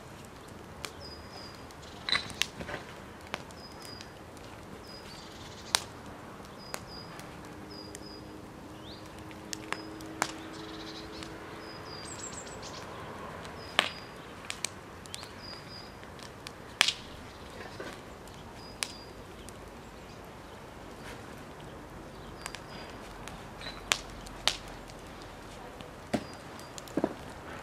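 Wood fire in an open fire pit crackling, with sharp, irregular snaps and pops. A small bird repeats a short, high chirp roughly once a second.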